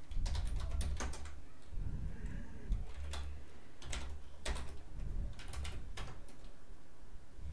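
Typing on a computer keyboard: irregular runs of keystrokes with short pauses between the bursts.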